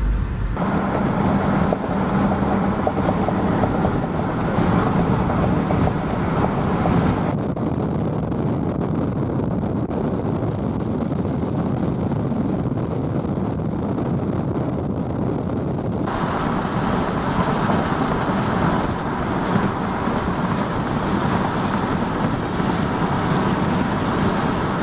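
Steady rushing noise of a Toyota 4Runner driving on a rain-soaked road through a thunderstorm: tyre spray, rain and wind noise heard from inside the truck. The higher hiss drops away abruptly for several seconds midway, then returns.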